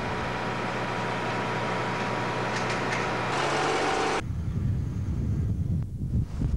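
Truck-mounted crane's engine running steadily with a low hum, stopping abruptly about four seconds in. Then a low, gusty rumble of wind on the microphone, with a short thump near the end.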